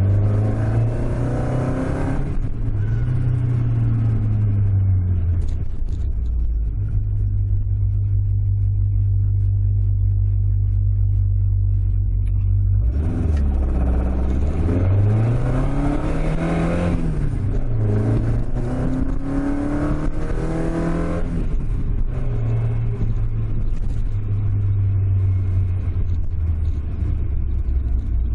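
Toyota AE86's 5-valve 4A-G inline-four engine heard from inside the cabin. It runs at a steady drone for several seconds, then revs climb hard about halfway through, dip briefly and climb again before settling back to a steady cruise. The engine is running with no abnormality.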